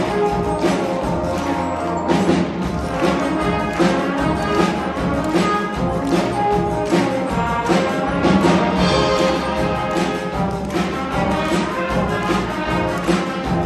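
A children's school brass band playing a piece live: brass instruments carrying the tune over a steady drum beat.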